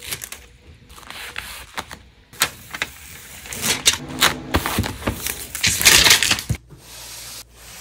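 Plastic bubble mailer crinkling and crackling as it is pressed shut, then a shipping label peeled from its backing and pressed onto the mailer: a run of sharp clicks and crackles, densest about four to six seconds in, that stops abruptly near the end.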